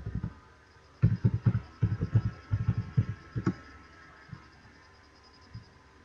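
Computer keyboard being typed on in a quick run of dull keystroke thumps for about two and a half seconds, followed by a few scattered single taps.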